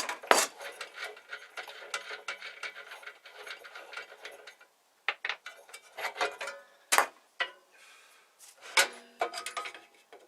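Clicks, scrapes and metallic rattles of hand work on a small belt sander as it is taken apart, with a few sharp knocks along the way.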